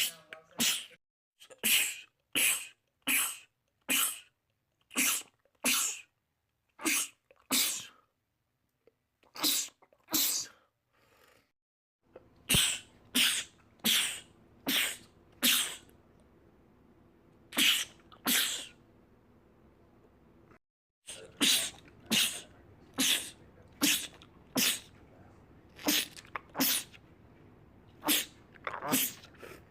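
Men sneezing in rapid fits: some thirty sharp sneezes, one about every second, in runs broken by short pauses.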